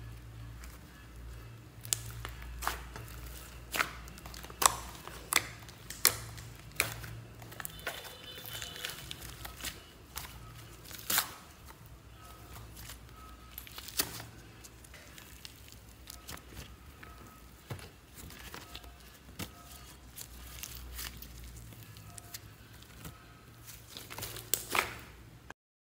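Hands stretching, pressing and kneading a large lump of glittery slime, giving a run of sharp sticky clicks and pops over a low steady hum. The sound cuts off abruptly near the end.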